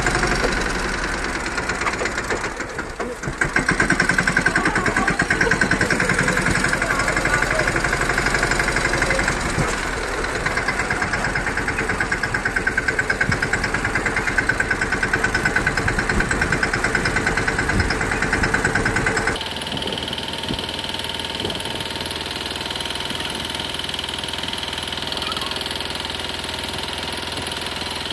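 Diesel farm tractor engine running steadily, with a brief dip in level about three seconds in. About two-thirds of the way through the sound changes abruptly to a steadier, slightly quieter engine sound.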